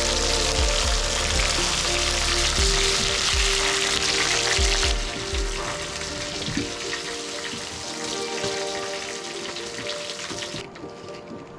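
Red emperor pieces frying in hot oil in a frypan, a dense sizzle that is loudest for the first five seconds and then drops to a quieter fizz. Music with a steady beat plays under it.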